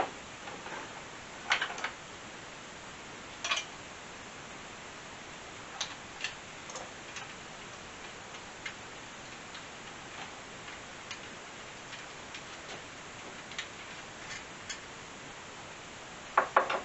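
Old metal lamp socket being unscrewed and taken off a table lamp by hand: irregular small clicks and taps, the loudest two in the first few seconds, over a steady faint hiss.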